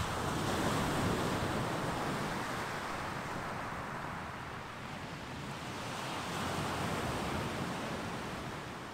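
Sea surf breaking and washing up a beach, swelling loudest about a second in and again about seven seconds in.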